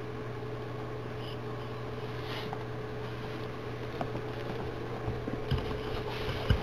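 Infrared electric fireplace heater running on its low setting: a steady hum from its blower fan, with a faint steady tone above it. A few low bumps come near the end.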